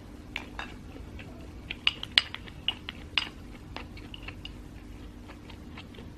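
Close-miked eating sounds: a string of sharp clicks and taps during the first four seconds, then quieter, over a steady low hum.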